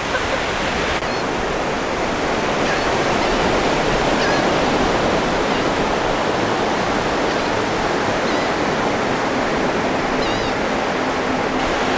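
Ocean surf breaking and washing up a sandy beach: a steady, unbroken rush of waves.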